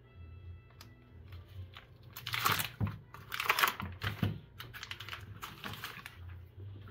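Foil butter wrapper crinkling as a block of butter is peeled out of it, in a cluster of loud crackles from about two seconds in, then lighter rustles.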